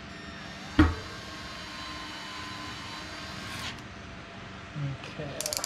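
Cordless drill/driver with a Torx bit running a disc-rotor bolt in: a sharp knock just under a second in, a steady motor whine for a few seconds, then a quick burst of rapid clicking near the end as the clutch slips at its set torque.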